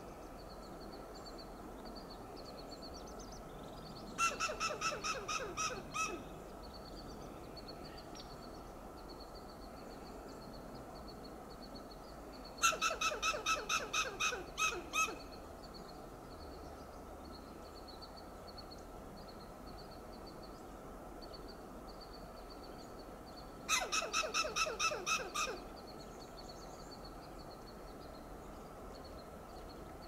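Western gray squirrel giving alarm calls: three bouts of rapid staccato calls, each about eight to ten calls in two seconds, with several seconds between bouts.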